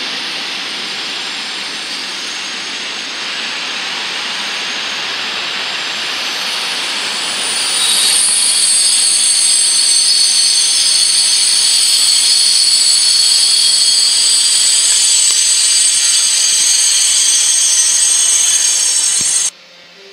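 Container freight wagons rolling past over points, wheels rushing steadily on the rails. From about eight seconds in, a high, steady wheel squeal of several pitches rises over the rolling noise, and the whole sound cuts off suddenly near the end.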